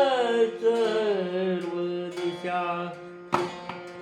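Kirtan singing: a voice holds one long sung vowel, wavering and falling in pitch through the first second and a half, then fading over a steady instrumental drone. About three seconds in, a sharp percussive stroke comes in, followed by a few lighter strokes.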